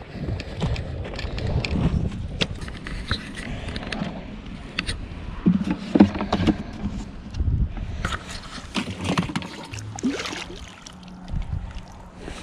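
A plastic cat litter pail being handled: its lid and handle give irregular clicks, knocks and rattles, with a louder clatter about six seconds in.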